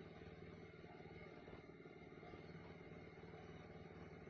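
Near silence: a faint, steady low hum of room tone.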